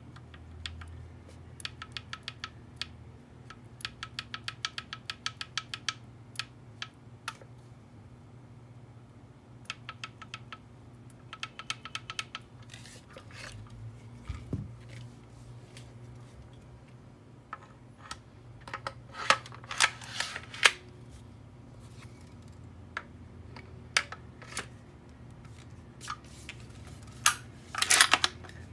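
Parts of a WE Thompson M1A1 gas blowback airsoft gun clicking and clacking as they are handled and fitted together: quick runs of small ticks, several a second, then a few louder sharp clacks in the second half, the loudest near the end.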